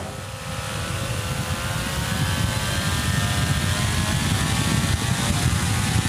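Homemade table fan's brushless (BLDC) motor and blades speeding up: a whine of several tones creeping slowly upward in pitch and growing louder, over a rushing, rumbling blast of air.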